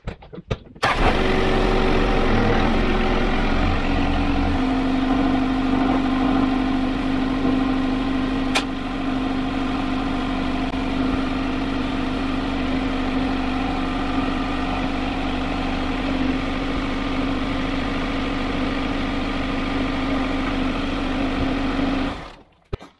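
Tractor diesel engine running steadily while the front loader lifts a heavy implement, with a steady hum entering about four seconds in. One sharp click comes near nine seconds, and the sound cuts off suddenly near the end.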